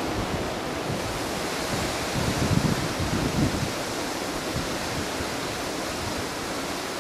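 Hurricane wind rushing steadily through palm fronds, with gusts buffeting the microphone in low rumbles that swell about two to three seconds in.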